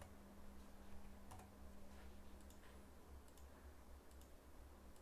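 Near silence with a few faint, irregular computer mouse clicks over a steady low electrical hum.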